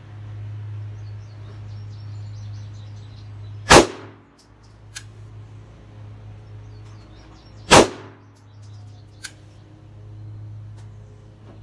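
Two single pistol shots about four seconds apart: the last rounds of a string, fired slowly and carefully. A few much fainter sharp cracks fall between them, over a steady low hum.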